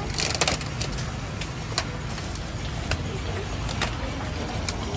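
Busy city street market ambience: a steady low rumble of traffic with scattered sharp clicks and clatters, a short cluster of them about half a second in.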